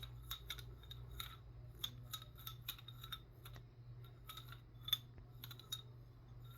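A handheld fidget toy being worked, giving a string of small, sharp, irregular clicks, several a second, with one louder click about five seconds in.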